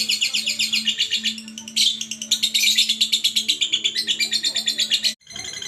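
Lovebird singing continuously in a long chattering run of rapid high chirps, several a second, with short pauses, over a steady low hum. The sound cuts out briefly about five seconds in.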